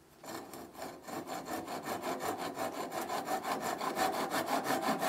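Hand backsaw cutting through the waste stock at the end of a turned wooden rolling pin's handle, leaving a short plug: quick, even strokes, several a second, starting a moment in and growing louder.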